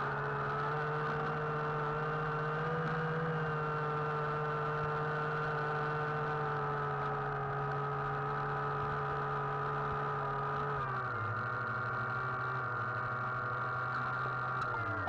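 RC submarine's electric drive motor whining steadily underwater, a hum with high overtones; the pitch drops slightly about eleven seconds in.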